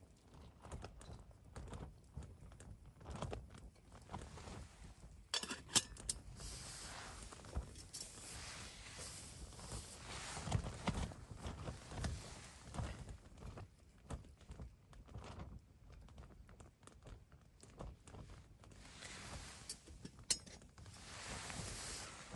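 Footsteps on rough, stony ground: irregular crunches and scuffs, with a few sharper knocks.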